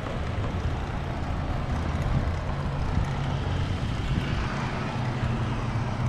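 Wind rushing over the microphone of a camera on a moving bicycle, a steady low rumble, with road traffic passing alongside.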